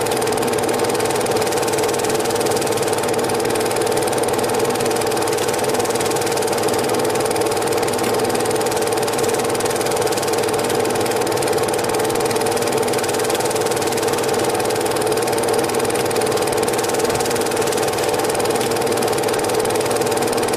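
Cine film projector running steadily, its motor and film-pulldown mechanism making a constant whirring clatter.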